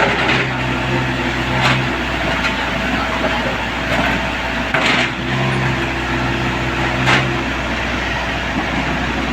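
Kobelco mini excavator's diesel engine running steadily, with a humming tone that comes and goes twice and a few sharp knocks.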